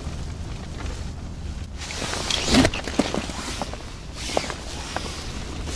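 Wind rumbling on the microphone, with a burst of rustling and a few light clicks and knocks about halfway through, from handling clothing or fishing gear on the ice.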